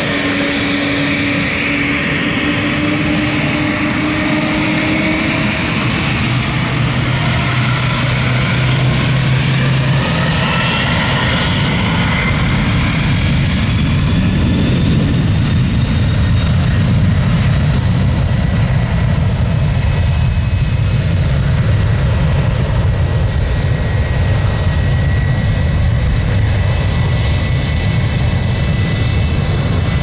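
Twin-engine widebody jet freighter on its takeoff roll, engines at takeoff thrust: a loud, steady jet roar with whining tones that rise, and a deep rumble building from about six seconds in.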